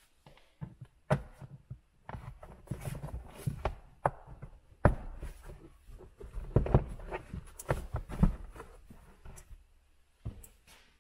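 WeatherTech molded rubber floor mat being lifted and pulled out of a car's front footwell: irregular scuffs, rustles and soft knocks, with a few sharper thumps in the middle.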